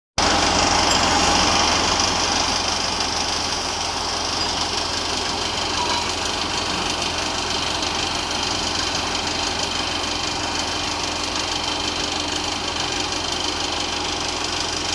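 Diesel engine of a combine harvester running steadily, an even unbroken drone with a low hum underneath.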